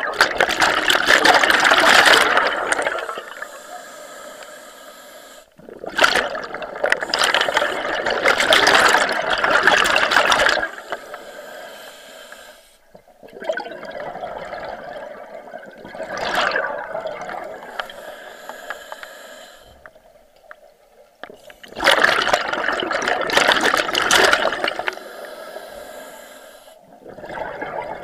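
A scuba diver breathing through a regulator underwater: a rush of exhaled bubbles four times, about every seven to eight seconds, with a quieter hiss between the exhalations.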